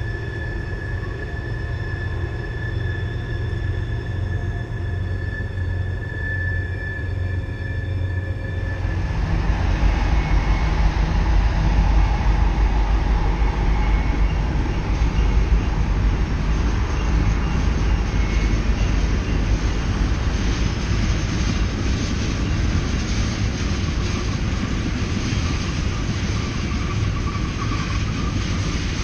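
Norfolk Southern freight train rolling around a sharp curve, its steel wheels squealing against the rails in several steady high tones over a low rumble. About nine seconds in, the sound changes suddenly to a louder, deep rumble of the passing train. A fainter squeal returns near the end.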